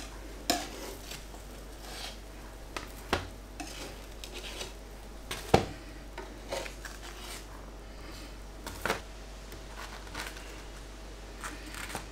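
A metal utensil clinking and scraping on a George Foreman grill's ribbed plate as toasted sandwiches are lifted off onto a wooden board. There are a handful of separate sharp clicks and knocks, the loudest about halfway through.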